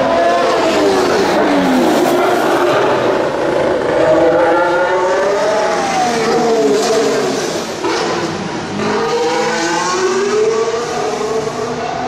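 Formula 1 race cars passing on the track, one after another, each engine note sweeping up and down in pitch as it accelerates and goes by.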